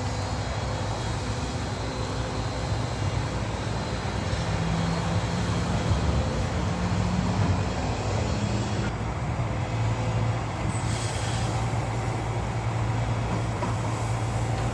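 Diesel engine of heavy construction machinery running steadily, its pitch rising briefly for a few seconds midway.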